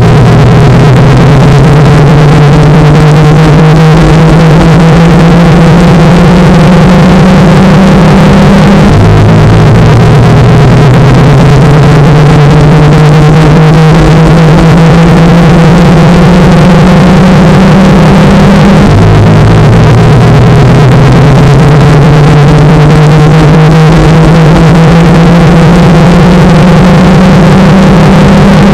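Washing machine spin-cycle noise, heavily distorted and clipped, a steady low hum under a slowly rising whine. It repeats as a loop about every ten seconds.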